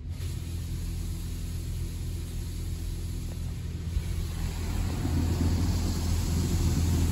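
Washworld Razor touchless car wash heard from inside the car during its clear coat sealant pass: a steady low hum, with the hiss of spray on the body and glass growing louder about five seconds in.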